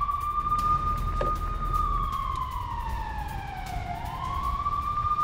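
A wailing siren on one slow rise-and-fall cycle. It holds a high pitch, slides down over about two seconds, and rises again about four seconds in, over a low steady rumble.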